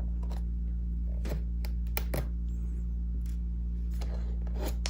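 A few scattered light clicks of a Phillips screwdriver working the small bottom-case screws out of an early-2011 MacBook Pro, over a steady low hum.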